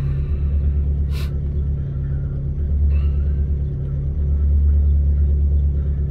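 Vehicle engine idling, heard from inside the cab as a steady low rumble, with one sharp click about a second in.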